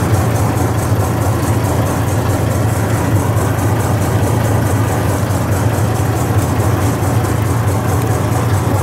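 Boat engine running steadily, a continuous low drone that does not change in speed.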